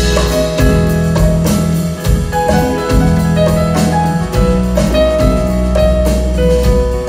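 Live band playing: a keyboard melody of held notes over a drum kit and guitars.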